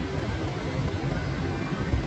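Steady rainfall with a low, continuous rumble of rolling thunder underneath.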